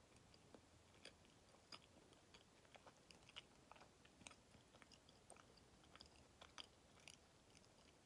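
Faint close-up chewing of a soft Kamome no Tamago sweet, the apple-flavoured one: small wet mouth clicks and smacks, several each second.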